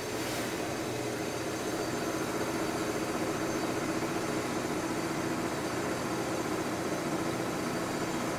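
Construction machinery running with a steady engine drone, holding level throughout.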